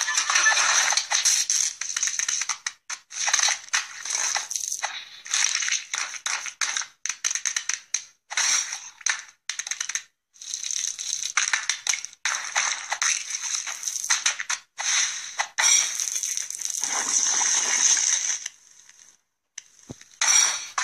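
Food being crushed and smashed: a rapid, uneven run of short scrunching and squishing sounds broken by brief silent gaps.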